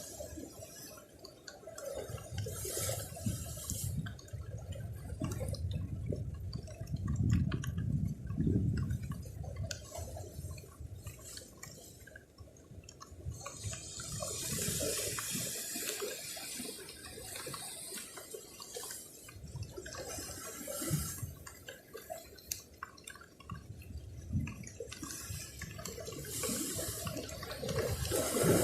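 Sea waves washing in against shore rocks, the rush of water swelling and falling back in surges every several seconds.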